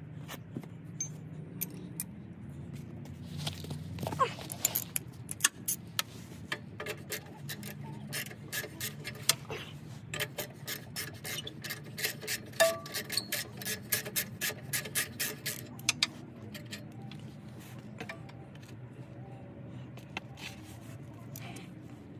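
Hand ratchet clicking in quick runs of strokes as a socket on an extension turns exhaust manifold fasteners, with metal tools scraping and clinking. The clicks come thickest through the middle, over a low steady hum.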